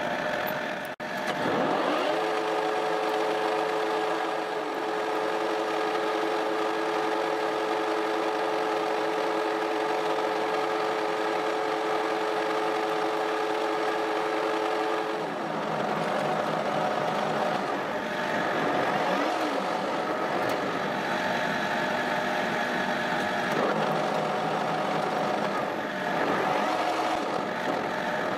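Metal lathe running under power while cutting a steel shaft: a steady machine hum with a held whine, which changes to a different running sound about halfway through.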